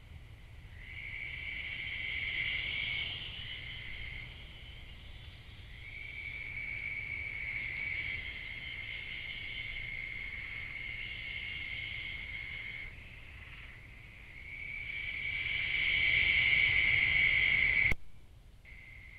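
A night chorus of insects, crickets or katydids, trilling steadily at a high pitch and swelling louder and softer over several seconds, over a low rumble. It drops away suddenly near the end, then comes back faintly.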